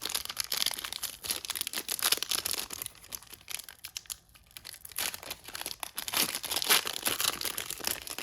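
Foil wrapper of a trading card pack being torn open and crinkled by hand, a dense crackling that starts suddenly and runs on with louder peaks.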